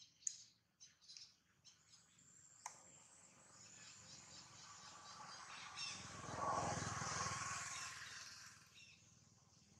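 Faint outdoor ambience: a few short high chirps in the first two seconds and a single click a little later, then a broad rushing noise that swells, is loudest about seven seconds in, and fades away.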